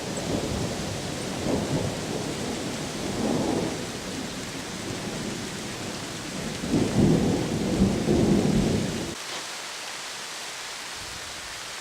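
Distant thunder rumbling low over a steady hiss of rain. A louder roll swells up about two-thirds of the way through, then the rumble drops away, leaving only the rain near the end.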